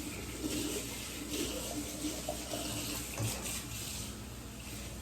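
Water running from a sink tap while hands and nails are rinsed under it.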